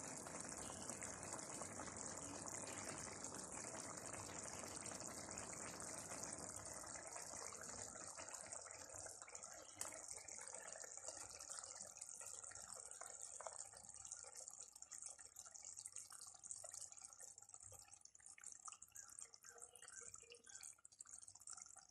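Fish curry gravy bubbling faintly in a clay pot, the simmer slowly dying down to scattered small pops with the stove just turned off.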